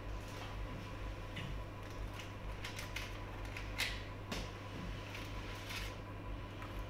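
A paper burger wrapper crinkling in scattered short crackles while a burger is handled, bitten and chewed, the sharpest crackle near the middle, over a steady low hum.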